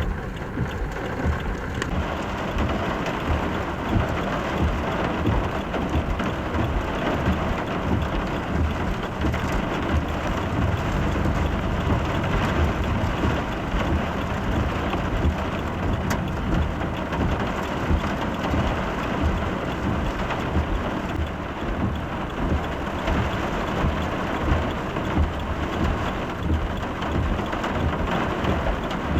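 Torrential rain pouring down, a dense, steady hiss of falling water with a heavy low rumble beneath it.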